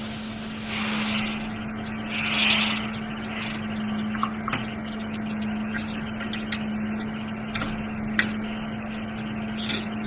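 Hot air rework station blowing steadily while a USB-C controller chip is soldered onto a laptop logic board, with a constant low hum under the airflow. There is a louder swell of air about two and a half seconds in and a few faint, sharp clicks.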